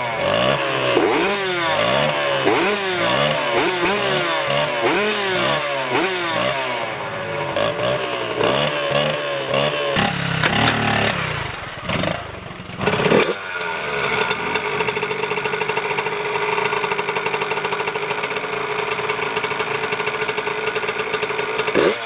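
Dirt bike engine revved in quick throttle blips, about one a second, for the first half, then after a brief drop settling into a steady idle.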